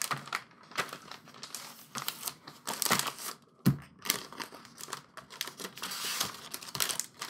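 Packaging crinkling and rustling in irregular bursts as items are unwrapped and handled, with a single knock about three and a half seconds in.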